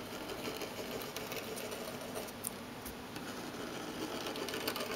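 Pilot FriXion 0.7 mm erasable gel pen writing continuous wavy lines on paper: the tip rubbing steadily across the sheet, with a couple of faint ticks about halfway through.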